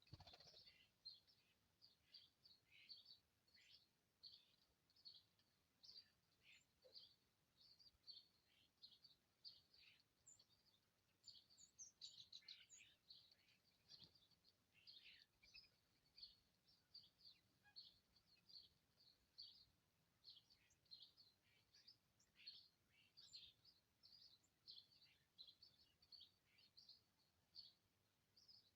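Small birds chirping at a winter feeder: a faint, continuous run of short, high chirps, several a second.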